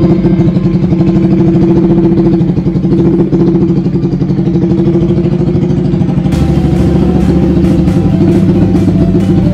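Yamaha Aerox scooter's single-cylinder engine idling steadily with a fast, even pulse. The sound grows fuller about six seconds in.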